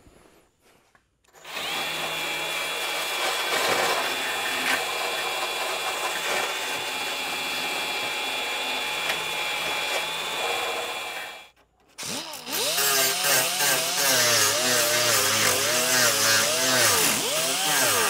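Handheld die grinder with a small abrasive disc working the sheet steel of a rusty trunk lid. It starts about a second and a half in and runs at a steady pitch for about ten seconds. It stops briefly, then runs again from about twelve seconds in, its pitch wavering as it bears on the metal.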